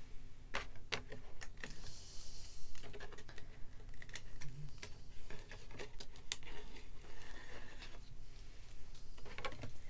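Irregular small clicks and taps of thin metal cutting dies and a clear acrylic cutting plate being handled and set down on a tabletop, with a brief rustle about two seconds in.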